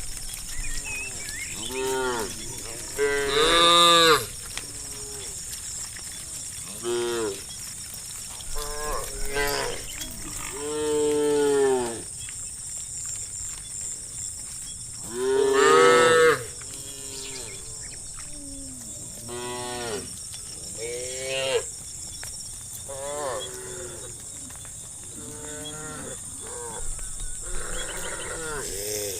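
Cattle in a herd mooing again and again: about ten drawn-out calls from several cows, the two loudest a few seconds in and about halfway through, over a steady high-pitched hiss.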